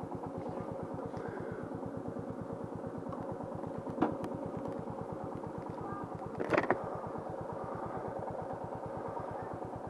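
Motorcycle engine idling with an even, rapid beat. A sharp click about four seconds in and a short clatter a couple of seconds later.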